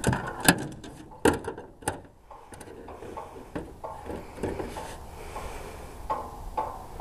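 Irregular knocks and thumps in a boat as a freshly landed northern pike and gear are handled, the loudest about half a second and a second and a quarter in, then quieter scattered knocks.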